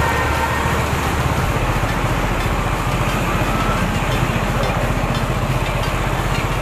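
Kawasaki Z900's inline-four engine running at low revs as the motorcycle rolls slowly through shallow floodwater, with a steady hiss of tyres on the wet road. The engine note shifts slightly about a second and a half in.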